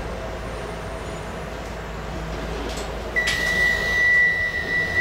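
Docklands Light Railway train at a standstill with a steady low hum. About three seconds in, a single steady high beep starts with a short clatter and holds on: the DLR door warning tone.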